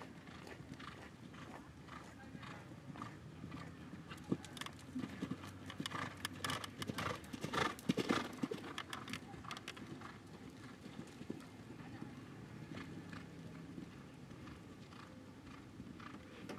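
Horse's hooves cantering on a sand-and-dirt arena in a quick beat, loudest about eight seconds in as the horse passes close by.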